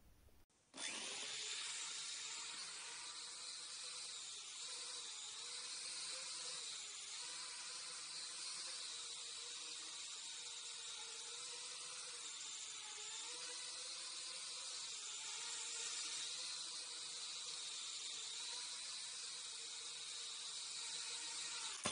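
Faint, steady high whir of the HX750 toy quadcopter's propellers as it hovers and flies carrying a 13-gram load of two coins taped underneath, its pitch wavering slightly as the throttle changes.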